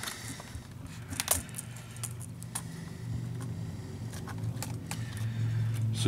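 Scattered sharp plastic clicks and light rattling of an HP Pavilion laptop keyboard being pried loose from the palm-rest and lifted out, the loudest click about a second in, over a low steady hum.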